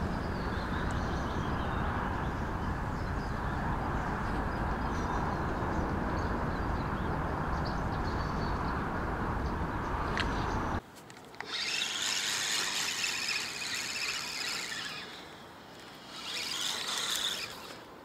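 Steady wind rumble on the microphone, which cuts off abruptly about eleven seconds in. After it comes a quieter, high-pitched chirring in two spells.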